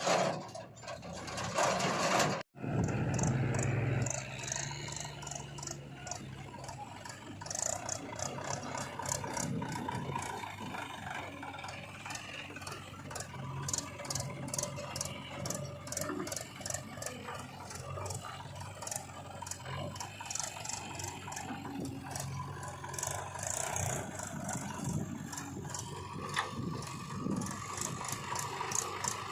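Heavy diesel machinery working, the backhoe loader's engine running steadily under rapid metallic rattling and clatter; the sound drops out for an instant about two and a half seconds in.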